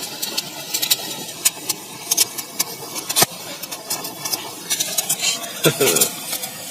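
A burning firework crackling: many irregular sharp crackles over a steady fizzing hiss, with one louder crack about three seconds in.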